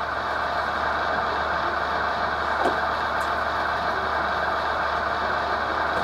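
Sound-equipped HO scale model diesel locomotive running, its onboard speaker playing a steady diesel engine rumble.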